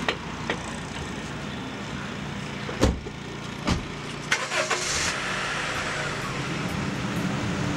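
A car door shutting with a thump nearly three seconds in, a few smaller clicks and knocks, then the car's engine starting about five seconds in and running steadily.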